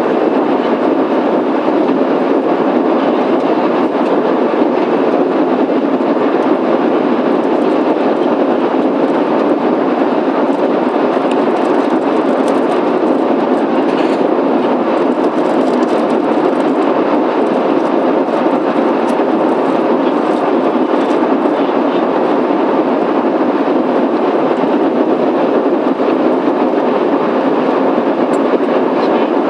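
Steady cabin noise inside a Boeing 737-800: the constant rumble and rush of its CFM56 jet engines and airflow, heard from a passenger seat.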